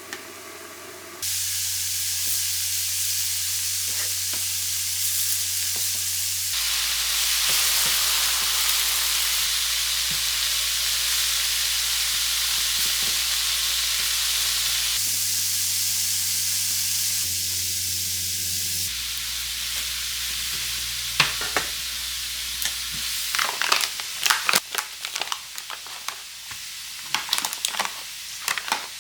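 A steady, loud hiss with a low hum that shifts in sudden steps. Sharp crackles and pops come thick and fast in the last several seconds.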